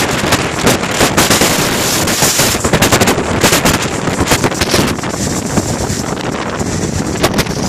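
Gale-force wind blasting the microphone: a loud, dense roar broken by rapid crackling buffets, heaviest in the first half and easing somewhat after about five seconds.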